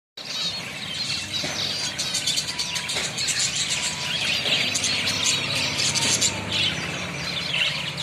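A crowded cage of finches, many of them zebra finches, chirping and calling all at once in a dense, unbroken chatter.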